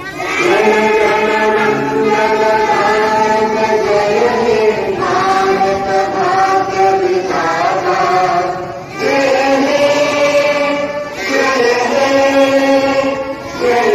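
A group of schoolchildren singing a prayer together in unison, holding long notes in several phrases with short breaks between them.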